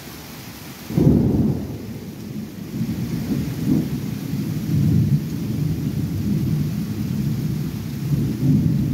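Thunder: a sudden loud clap about a second in, then a low rumble that rolls on and swells again twice, over a steady hiss of rain.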